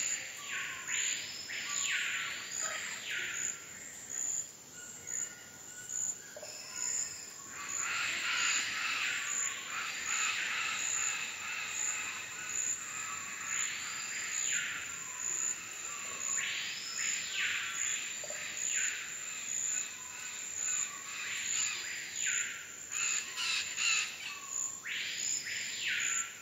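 Amazon rainforest birds calling: loud whistles that swoop up and back down, mostly in pairs, repeating every few seconds. Rougher, busier calls come in about a third of the way through, and a steady high pulsing tone runs underneath.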